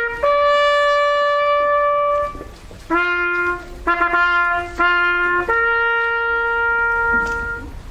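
Solo trumpet playing a slow ceremonial call, sounded while salutes are held at a war memorial: a long held note, three short lower notes, then a last long note that dies away near the end.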